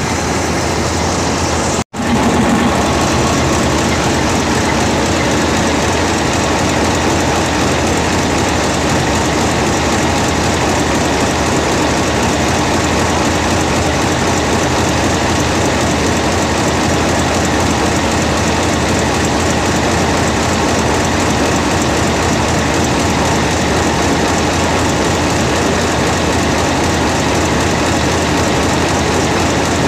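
Diesel locomotive engine running steadily, loud and heard close up beside its cylinder heads and fuel lines. The sound cuts out for an instant about two seconds in.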